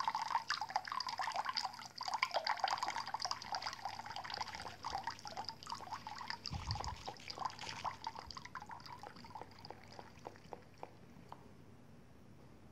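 A thin stream from a bathroom sink tap trickling and splashing into the basin, dripping and spattering and getting quieter towards the end, with the cat lapping at the stream in the first seconds. A soft low bump about six and a half seconds in.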